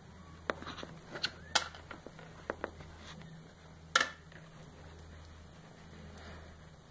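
Kittens being stroked and shifting in a cardboard box: scattered soft clicks and rustles of handling, the sharpest about four seconds in, over a low steady hum.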